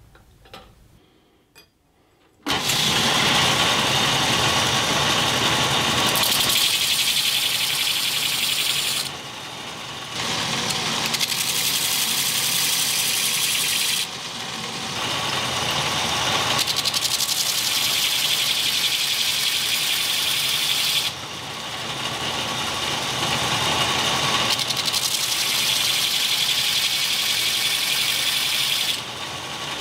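Belt grinder grinding a steel knife blank cut from a circular saw blade: a loud, steady grinding hiss that starts after about two seconds. It dips briefly four times as the blank comes off the belt between passes.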